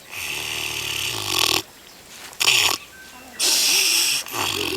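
Pig snoring: a long, noisy snoring breath with a low falling pitch under it, a short sharp snort about halfway through, then another long snoring breath near the end.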